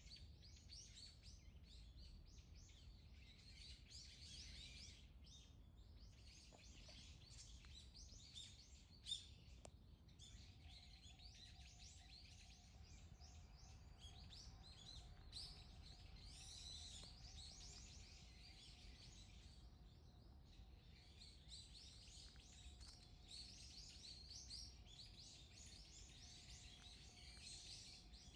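Faint chorus of many small birds chirping, with high calls overlapping throughout. A single sharp click about nine seconds in, and a faint steady hum joins about ten seconds in.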